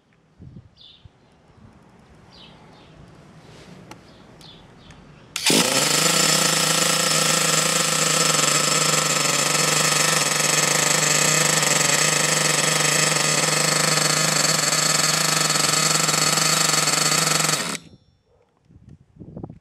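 SH PT21-P3 .21 nitro engine in an RC buggy fires up abruptly about five seconds in and runs steadily at idle for about twelve seconds, then cuts off suddenly as the remote idle-cut stop shuts it down.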